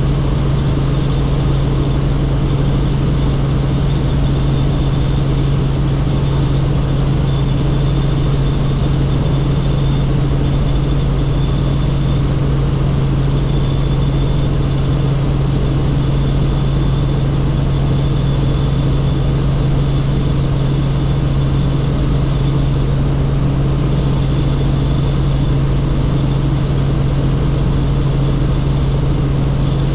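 Helicopter in flight: a loud, unchanging drone with a strong low hum and a faint high whine above it.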